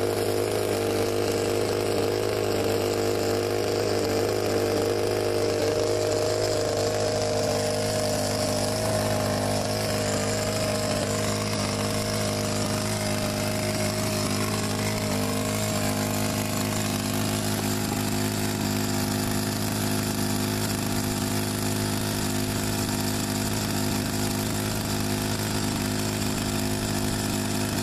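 Saito 91 four-stroke glow engine of a model aircraft running steadily on the ground after an overhaul, its pitch shifting slightly about six or seven seconds in.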